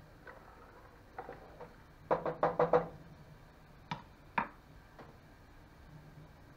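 Wooden spoon rapped on the rim of an aluminium saucepan, a quick run of about six knocks with a short metallic ring. Then two single knocks about a second later as the spoon is set down on the countertop.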